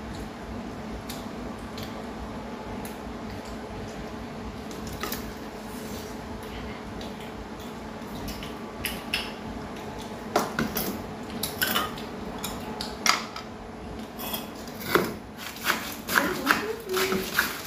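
Chopsticks and spoons clicking against ceramic rice bowls and plates during a meal, sparse at first and more frequent in the last few seconds, over a steady hum. A voice is heard briefly near the end.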